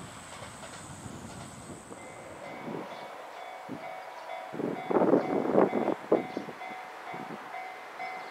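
Railway level crossing alarm ringing, two-tone bell strokes repeating at an even pace, which warns of an approaching train. Before it starts there is a low rumble of the approaching train, and around the middle a louder, uneven flurry of noise breaks in.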